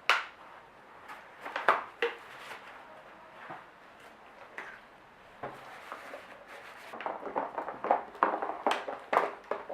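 Glue-and-shaving-foam slime being stirred and worked by hand as borax activator is added. Soft wet squishing with scattered light taps and clicks.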